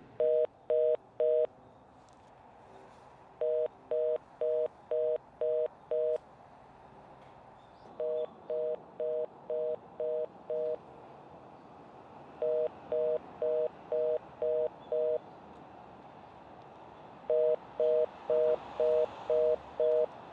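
Telephone line tone: short, even electronic beeps about two a second, in runs of about six with pauses of about two seconds between the runs, over a low hiss.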